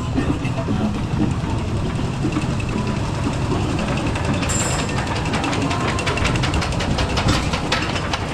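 Mousetrap roller coaster car rumbling along its steel track, with a fast, even run of clicks from about five seconds in.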